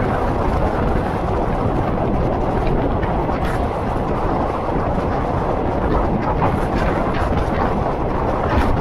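Diesel railcar running at speed, heard from outside a carriage window: a steady rumble of engine and wheels on the rails mixed with wind rushing over the microphone, with a couple of faint clicks.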